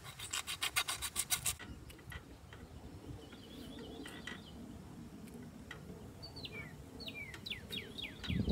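A quick run of evenly spaced rasping, scraping strokes in the first second and a half. From about six seconds in, a songbird sings a run of quick falling whistled notes.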